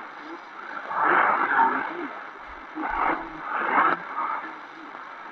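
Distant shortwave broadcast from Reach Beyond Australia on 15460 kHz playing through the XHDATA D-808 portable radio's speaker, received on a 3-metre wire antenna: a voice reading in short bursts over steady static hiss.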